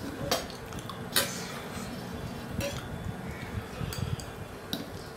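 A metal spoon clinking against a steel bowl and plates as dal is served, about five sharp clinks, the loudest about a second in.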